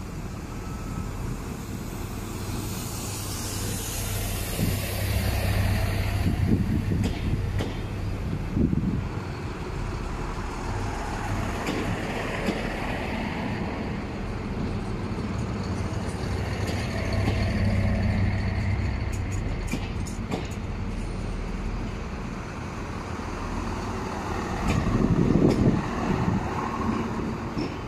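Diesel engines of two coupled Siemens Desiro diesel multiple units running as the train pulls out. The engine note swells and eases several times, with a few sharp clicks in the last third.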